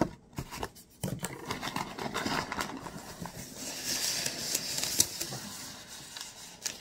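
Cardboard shipping box being opened by hand and crumpled brown kraft packing paper rustling as it is pulled out, with a couple of sharp clicks of cardboard.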